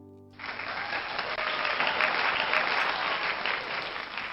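The song's last chord dies away, then applause breaks out abruptly about half a second in and keeps going, fading near the end.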